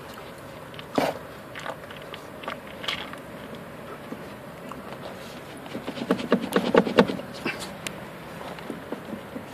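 Front suspension of an Alfa Romeo 156 shaken by hand, knocking at the worn upper suspension arm, which has a lot of free play. Irregular clunks: one about a second in, a couple near three seconds, then a quick run of knocks around six to seven seconds.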